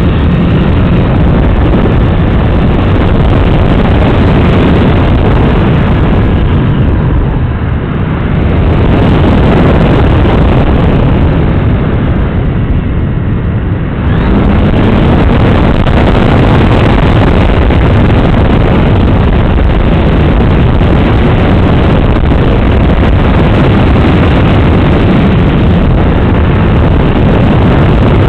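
Motor and propeller of an FPV model aircraft heard through its onboard camera, largely buried under wind rushing over the microphone. The sound eases off for several seconds in the middle, then comes back up sharply about halfway through.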